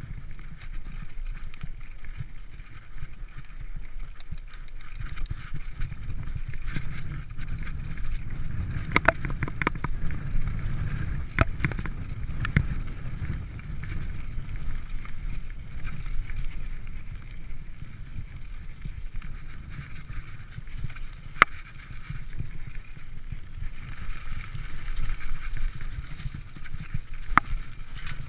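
Mountain bike ridden along a dirt singletrack, heard from on the bike: a steady rumble of tyres on dirt and air over the microphone, with sharp knocks and rattles as the bike hits bumps, thickest about nine to thirteen seconds in and single ones near twenty-one and twenty-seven seconds.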